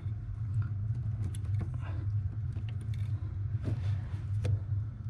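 A few faint light clicks and taps as a hand presses a metal brake line down beside the brake master cylinder, over a steady low hum.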